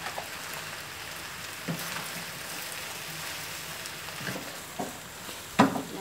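Spaghetti, tomatoes and basil leaves sizzling steadily in a hot wok, with a few short knocks and scrapes of a wooden spatula against the pan, the loudest a little before the end.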